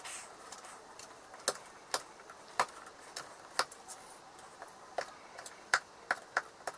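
Knife blade trimming excess polymorph thermoplastic off a cast bench dog: irregular sharp clicks and snaps as the blade cuts through the plastic and knocks against it, more frequent in the last couple of seconds.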